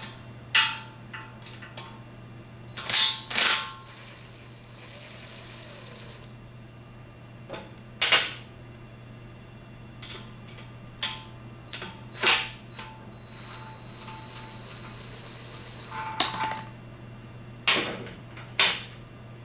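Cordless power driver with a 12 mm socket run in short trigger pulls to back out exhaust header bolts: about nine brief bursts with pauses between, and a faint steady whine in two stretches.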